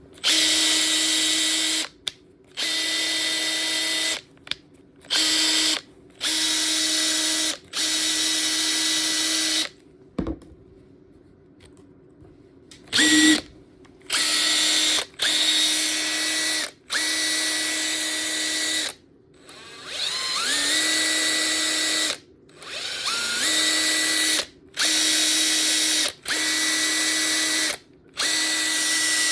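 Makita TP131D cordless 4-mode impact driver run with no load in repeated short trigger pulls: the motor whirs at a steady pitch for a second or two, stops, and starts again about fifteen times. Twice, the pitch climbs slowly from low to full speed as the variable-speed trigger is squeezed.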